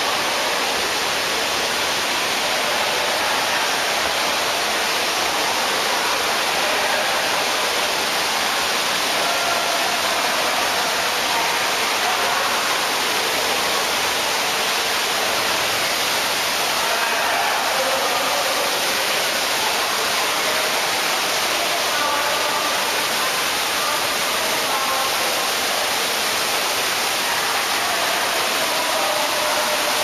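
Steady rushing of the Cloud Forest dome's tall indoor waterfall, heard at a distance, with faint voices of other people now and then.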